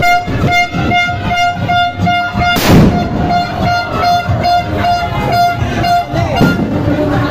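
A firecracker goes off with one loud bang about three seconds in, amid a run of sharp crackling pops. A horn-like tone sounds throughout in rapid pulses, about four a second.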